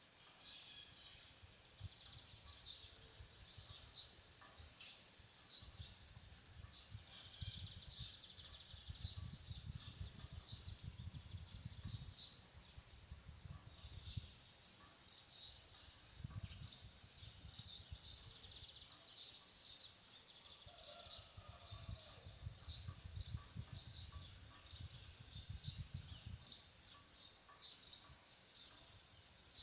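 Birds chirping in quick, steady runs of short calls, over a low rumble that swells and fades.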